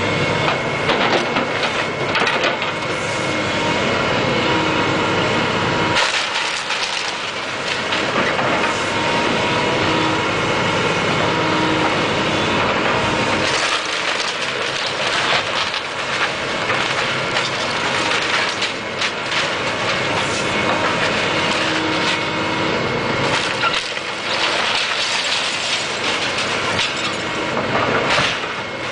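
Caterpillar excavator demolishing a house: its engine runs with a steady whine under repeated wood cracking and splintering and debris clattering, with sudden changes a few times where clips are cut together.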